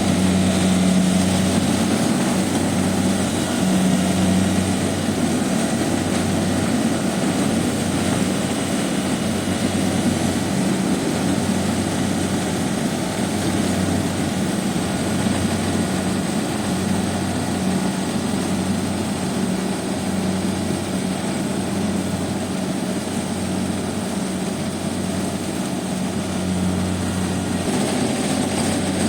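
Kubota DC70 combine harvester running steadily, its diesel engine giving a constant low hum under the machinery noise.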